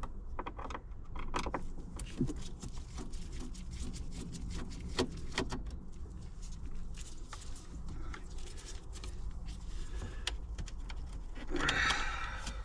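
Scattered light clicks and taps of hand tools working at small screws in a car's interior trim, with a brief scraping rustle near the end.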